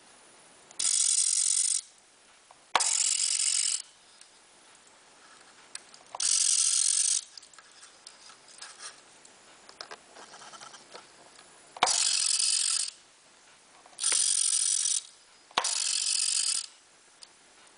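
The small electric motor of a Sikorsky S-39 model's landing-gear retraction mechanism whining through its gear train as it swings the gear strut, in six runs of about a second each. Each run starts with a click, with quiet pauses between them.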